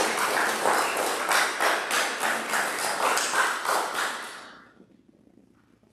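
A small group applauding, a dense patter of hand claps that dies away about four and a half seconds in.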